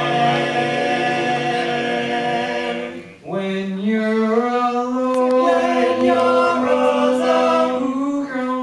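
Teenage boys' a cappella quartet singing in close harmony, holding long sustained chords: one chord until about three seconds in, a short break, then a second held chord that moves to a new chord near the end.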